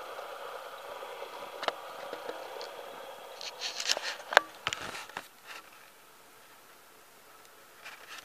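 Close handling noise from plastic containers and tubing: a few scattered clicks, then a flurry of sharp clicks and rustles about halfway through, over a steady hiss that drops away a little later.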